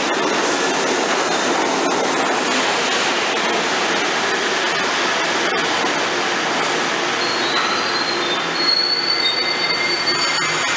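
New York City subway train running through the station with a steady rumble of steel wheels on rail. In the last few seconds several high-pitched wheel squeals rise above it.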